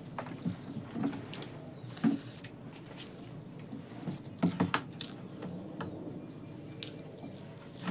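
A person eating, chewing a mouthful with wet mouth sounds and scattered sharp smacking clicks. The loudest clicks come about two seconds in and in a quick cluster around the middle.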